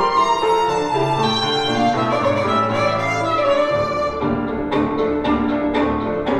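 Classical orchestral music led by violins, played back through Energy C100B bookshelf speakers. A deeper bass line comes in about four seconds in, along with a series of short, sharp accented strokes.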